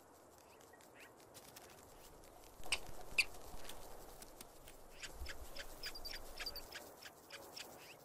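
Ground squirrel giving short, sharp chirps: a couple about two and a half to three seconds in, then a quick run of them in the second half.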